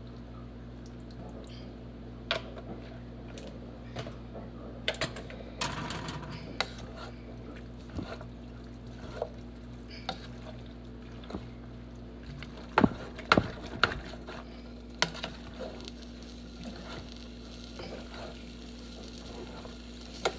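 A wooden spoon stirring a stew in a metal pot, with scattered knocks and scrapes against the pot, the loudest clacks coming a little past the middle.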